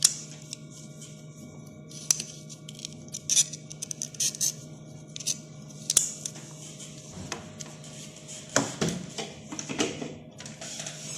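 Scattered small clicks and brief light scrapes of hand tools and fingers working the flat flex cable off an LCD TV panel, over a steady low hum.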